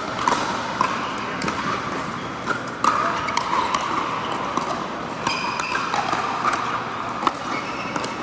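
Pickleball paddles hitting a plastic ball and the ball bouncing on an indoor court: sharp pops at irregular intervals over a steady background of play on the surrounding courts.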